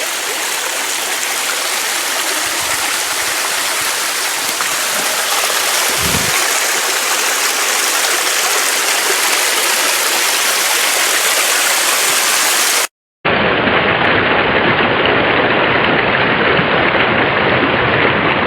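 Small cascading waterfall at a light flow, water falling over rock with a steady rushing hiss. About two-thirds of the way through the sound cuts out for an instant and returns duller.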